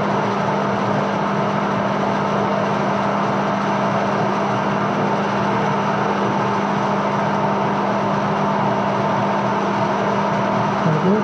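Edgwick metal lathe running at a steady, even hum on a thread-cutting pass, cutting an Acme thread on a long lead screw.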